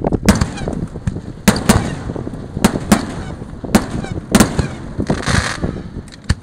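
Fireworks going off in quick, irregular succession: about eight sharp bangs, with a short crackling hiss a little after five seconds in.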